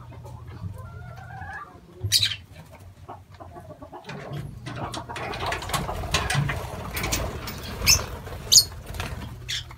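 A flock of lovebirds flapping their wings as they take off from the floor, the fluttering thickening from about halfway through, with a few sharp, high chirps.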